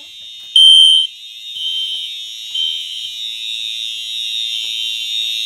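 Fire alarm sounder beeping high-pitched about once a second, the first beep loudest, with a steadier alarm tone building through the second half. The system is in alarm from a manual pull station that has just been pulled.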